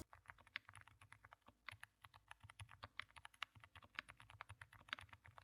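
Mechanical keyboard with Kailh switches being typed on: a rapid, irregular run of faint key clicks, several a second.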